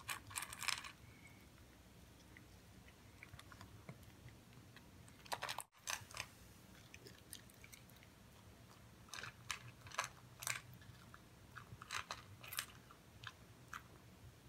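Poodle crunching dry kibble, in short bursts of sharp crunches with quiet pauses between them.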